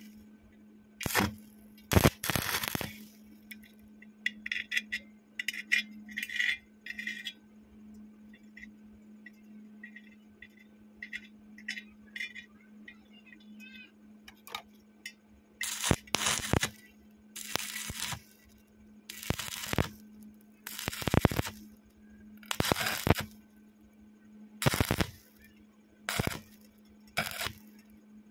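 Stick-welding arc crackling in short bursts as a coated electrode lays tack blobs on steel tube. Two bursts come near the start, fainter crackle follows, then about eight bursts of about a second each in quick succession in the second half, over a steady low hum.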